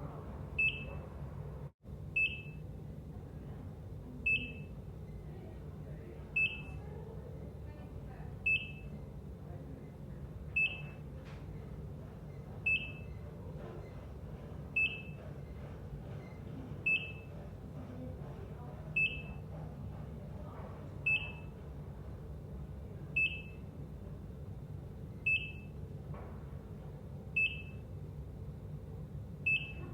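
ECG heart monitor beeping at a steady rhythm: a short high beep about every two seconds, over a steady low hum.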